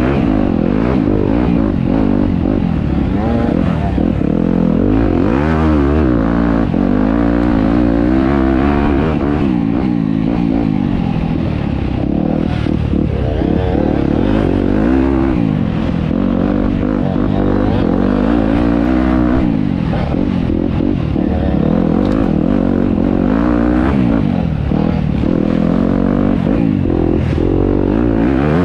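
Enduro dirt bike engine revving hard and easing off over and over, its pitch rising and falling every second or two as the rider works the throttle through the gears off-road.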